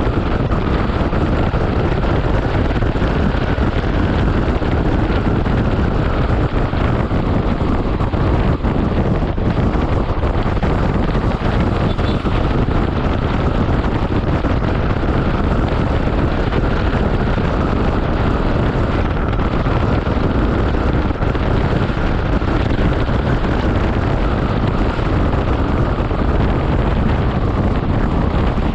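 Steady wind rush over the microphone of a Honda ADV160 scooter riding at road speed, with vehicle noise beneath it.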